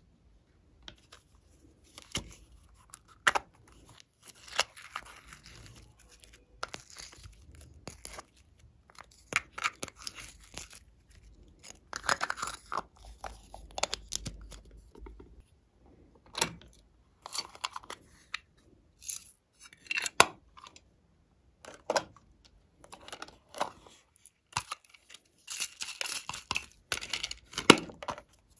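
Hands opening and handling small plastic containers: irregular clicks and taps from lids and caps, mixed with short bursts of rustling and crinkling.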